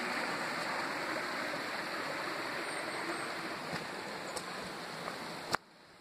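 A steady, even rushing noise that cuts off suddenly with a click about five and a half seconds in.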